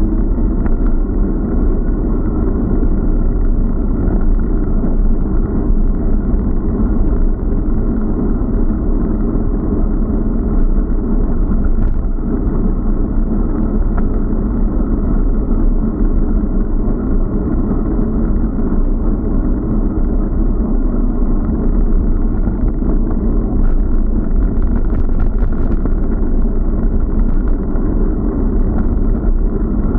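Steady rumble of wind and road noise on a bike-mounted action camera's microphone while cycling along a road.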